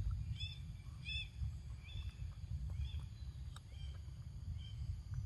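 Short, high chirping calls from a bird, repeating roughly once a second, over a steady low rumble, with a few faint clicks.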